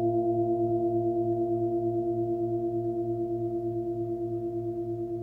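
A 24 cm forged Nepalese singing bowl, low fundamental near 111 Hz (A), ringing on with several steady overtones. The tone wavers in a slow beat about three times a second and fades gradually.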